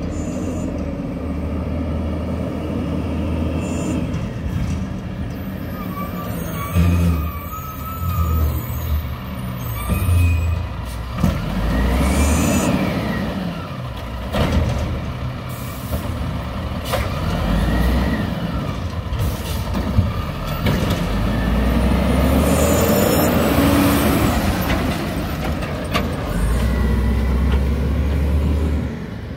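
WhiteGMC Amrep Octo automated side loader garbage truck working close by: its diesel engine runs and revs up and down, and its air brakes hiss several times as it stops and starts. In the middle its hydraulic arm lifts and dumps a recycling cart while the engine revs to drive the hydraulics, then the truck pulls away.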